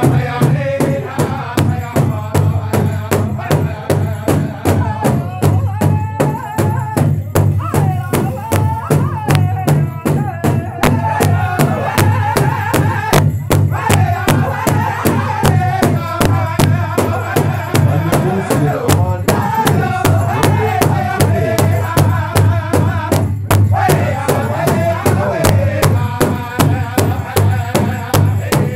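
Powwow drum group: several men striking a large shared powwow drum in unison with beaters in a steady beat while singing together in high, strong voices.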